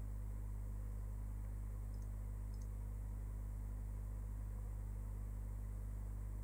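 Steady low electrical hum with faint hiss, the recording's background tone. Two faint ticks, about half a second apart, come about two seconds in.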